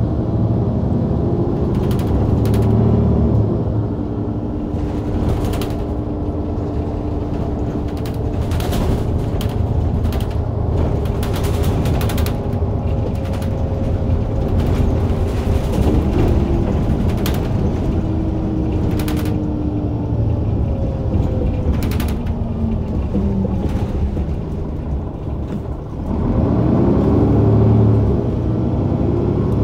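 Mercedes-Benz O530 Citaro bus with Voith automatic gearbox driving, heard from the rear directly above the engine: the engine runs steadily under a clatter of rattles and clicks from the bus body. Near the end the engine briefly drops, then picks up again, revving as the bus accelerates.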